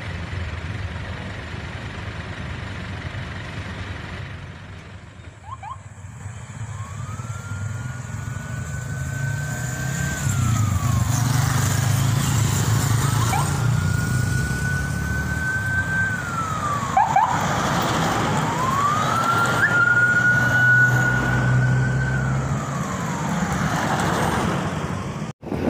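Emergency vehicle siren wailing in three slow cycles, each rising, holding for a few seconds and falling again, over the low rumble of vehicle engines on the move. The sound cuts out for a moment near the end.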